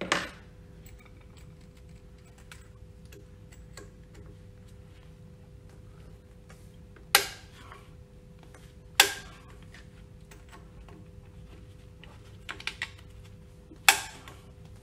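Sharp clicks and knocks of tools and metal parts being handled at a pump's shaft coupling: one near the start, two a couple of seconds apart in the middle and one near the end, with a few lighter clicks between, over a faint steady hum.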